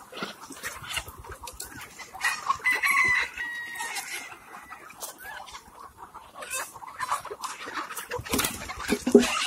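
A flock of Kadaknath chickens clucking, with a rooster crowing once about two seconds in.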